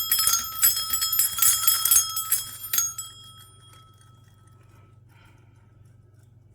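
A stainless steel bird toy shaken so its bell cup rings rapidly, the metal tags inside striking it along with clinking metal parts. The shaking stops about three seconds in and the bell rings out, fading away.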